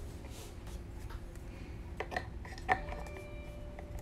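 Trading cards in hard plastic holders being handled and set into display stands, with small rubs and two sharp plastic clicks, the louder one near the end, over a low steady hum.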